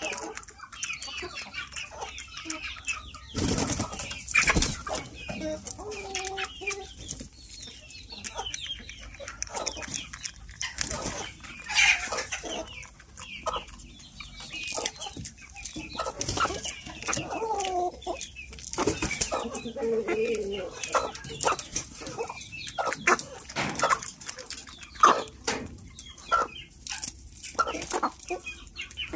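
Chickens clucking as they peck dried corn kernels from a hand, with short sharp pecking clicks throughout and a brief rush of noise about four seconds in.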